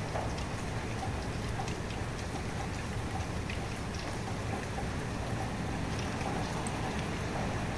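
Steady rain falling, with scattered individual drops ticking and plinking against a surface.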